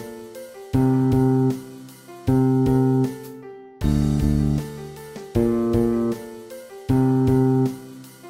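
Bass guitar line played back from the notated part: pairs of short plucked eighth notes about every one and a half seconds, each pair ringing out into a brief rest.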